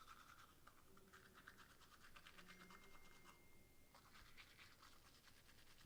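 Faint, quick scratching strokes, several a second, with a short break about four seconds in.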